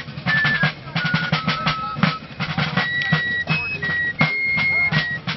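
Fife and drum corps playing a military march: rapid side-drum strokes under a high fife melody of held notes stepping up and down.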